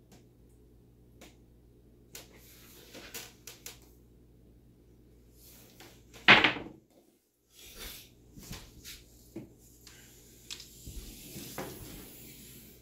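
A pair of dice clicking faintly as they are set in the fingers, then thrown: they strike the felt-covered wooden craps table with one loud clatter about six seconds in. Scattered lighter knocks follow as the dice settle and are pushed back with a stick.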